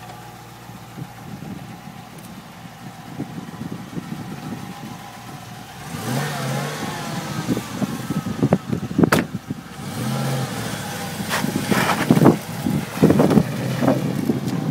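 Dodge Charger's HEMI V8 idling with a low rumble, then revved from about six seconds in, its pitch rising, and running under load as the car pulls away, with a few sharp knocks in the second half.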